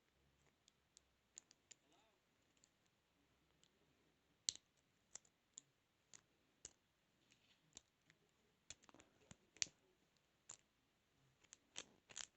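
Faint, scattered small clicks of a lock pick and tension wrench working inside a 32mm padlock, one sharper click about four and a half seconds in and quicker runs of clicks in the last few seconds.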